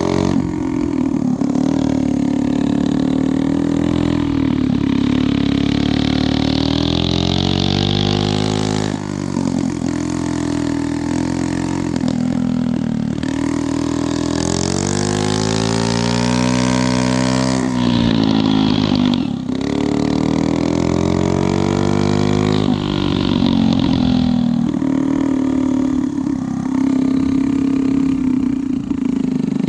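Yamaha QA50 minibike's small engine running under way, its pitch climbing as it is throttled up and dropping back several times, with the longest climb about halfway through.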